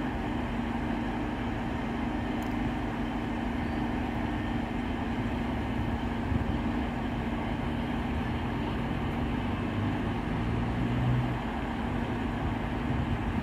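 British Rail Class 150 Sprinter diesel multiple unit's underfloor Cummins diesel engines running steadily at idle while the unit stands at the platform. The drone is even throughout, with a slight lower tone swelling briefly near the end.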